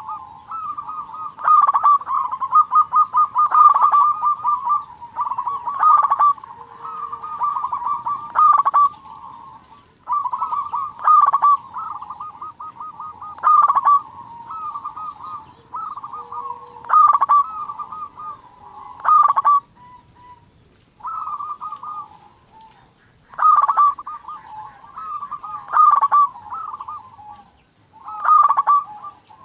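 Zebra doves cooing: rolling phrases of rapid, bubbling notes, each ending in a few louder coos, repeating every two to three seconds, with a short break about two-thirds of the way through.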